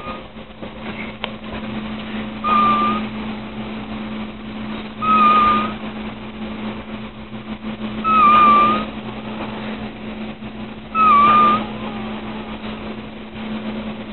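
A sleeping woman's whistling snore: on each breath a short whistled note with a breathy rush, four times about three seconds apart. A steady low hum runs underneath.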